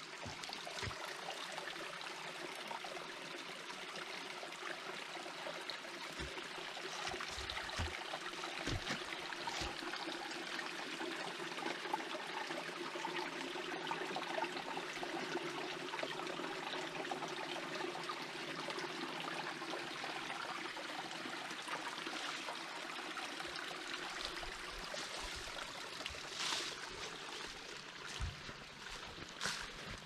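Small forest creek trickling and babbling, a steady running-water sound.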